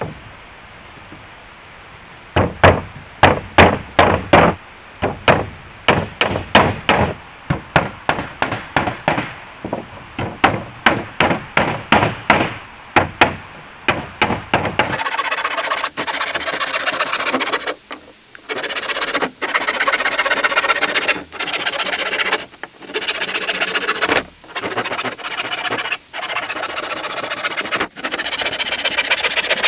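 Wood being struck over and over, about two to three sharp blows a second, for some twelve seconds; then, about halfway, wood being sawn, a rasping in runs of a second or two with short breaks between them.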